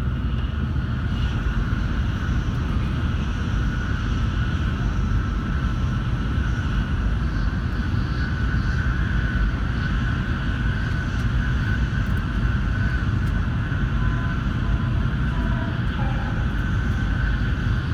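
Shinkansen bullet train running at speed: a steady deep rumble with a faint, unchanging high tone over it.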